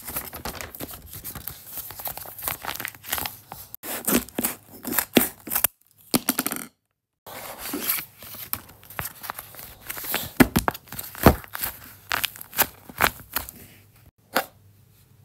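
Homemade paper blind bag being torn open and crinkled by hand: irregular rips and crackling rustles, with a short total silence about six seconds in.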